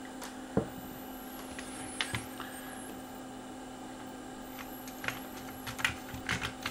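A few small, sharp clicks and taps from hands handling the plastic parts of a CD player's disc mechanism, over a steady low hum.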